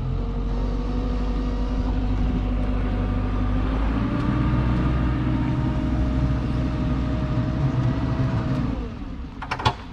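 Boat engine running under throttle as the boat is driven up onto its trailer. It picks up about four seconds in, then drops away shortly before the end, followed by a brief sharp sound.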